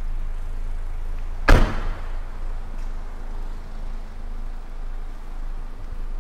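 A car door, the MG3's rear passenger door, shut once with a solid thud about one and a half seconds in, over a steady low hum.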